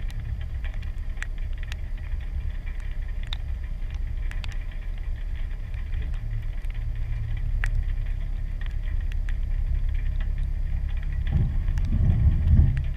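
Jeep Wrangler's 3.6-litre V6 idling with a steady low rumble and scattered light ticks; the rumble swells briefly near the end.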